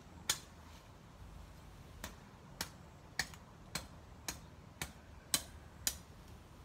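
Hand pruning shears snipping through plant stems: nine sharp clicks, the first alone, the rest evenly about half a second apart.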